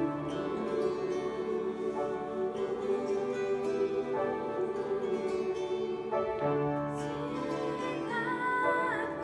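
Choir singing sustained chords over a plucked harp accompaniment. About eight seconds in, a higher voice with a wide vibrato comes in above the choir.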